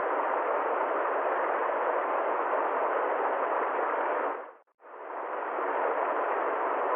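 Steady, even hiss of noise, dropping out for a moment about four and a half seconds in and fading back up.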